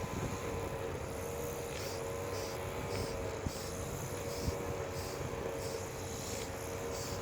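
Motor-driven spray pump running steadily with a constant hum, with short hissing spurts from the spray nozzle on and off as the roof surface is soaked.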